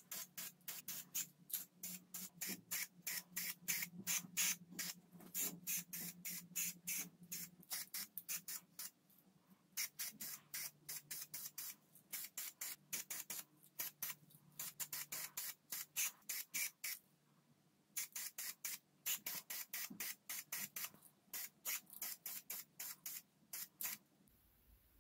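Aerosol spray paint can sprayed in rapid short bursts, several a second, in runs broken by short pauses, to coat small metal parts; the spraying stops near the end.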